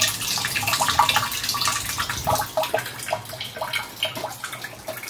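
Rainwater from a guttering downpipe pouring through a diverter hose into a plastic water butt, a thin stream splashing steadily onto the water collected inside.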